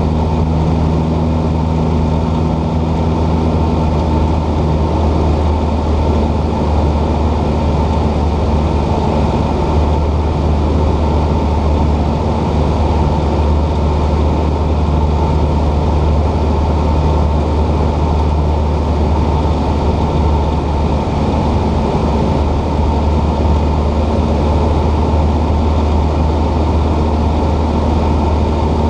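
Cessna 172 piston engine and propeller droning steadily in cruise flight, heard inside the cabin.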